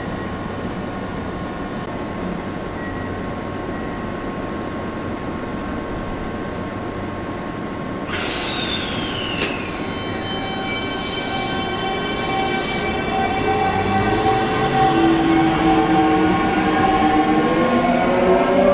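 Electric train at a station: a steady hum, then a sudden hiss about eight seconds in. After that, a whine of several steady tones from its VVVF inverter-driven motors builds and begins to rise in pitch as the train starts to pull away.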